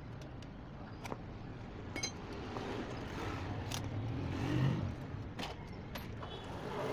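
Small cutter blade slicing and scraping through the excess glass-fibre mat around a half-gelled fiberglass laminate, trimming it along the mould edge, with a few sharp clicks. A low rumble runs underneath and swells about halfway through.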